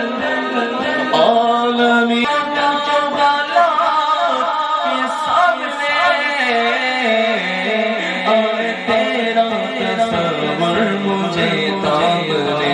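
A man singing a devotional Urdu naat into a microphone over a public-address system. His melody moves in long held notes that step up and down.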